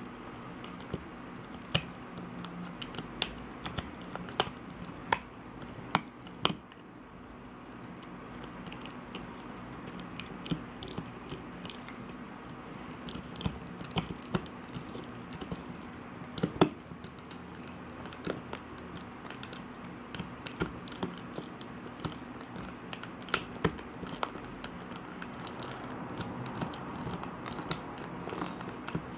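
American cocker spaniel gnawing a hard chew with its side teeth, irregular sharp crunching clicks coming every second or so.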